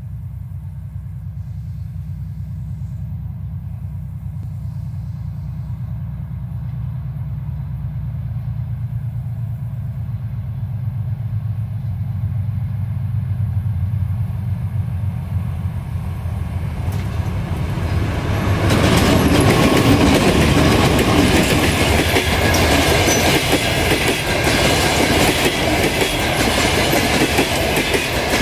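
2TE10Ut twin-section diesel locomotive approaching, the low drone of its two-stroke diesel engines slowly growing louder. About eighteen seconds in it passes and the sound jumps to a loud rush and clatter, followed by the passenger coaches' wheels clattering steadily over the rails.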